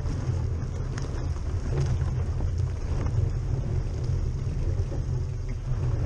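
Chevrolet Niva driving slowly off-road, a steady low engine and drivetrain rumble with scattered knocks and cracks as it rolls through the broken ice of a frozen puddle.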